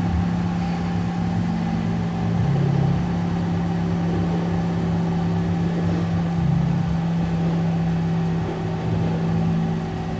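A 2005 Chevy Cobalt's four-cylinder engine idling steadily, heard at the exhaust, where the freshly welded muffler joint shows no leak.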